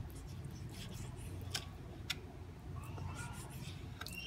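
Kitchen knife slicing raw tuna on a plastic cutting board, faint, with two light ticks of the blade against the board about one and a half and two seconds in, over a low steady hum.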